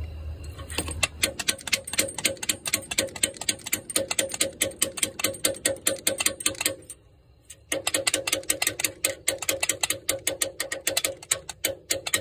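Hand ratchet clicking rapidly and evenly as it is worked back and forth on a front differential mount bolt. It stops for about a second about two-thirds of the way through, then starts again.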